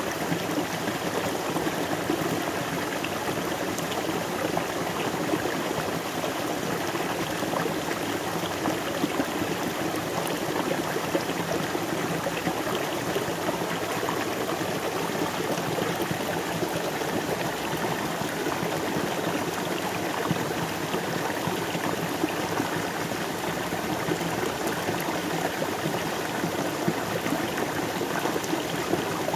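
River water flowing steadily, a dense, even babble and rush of water over stones.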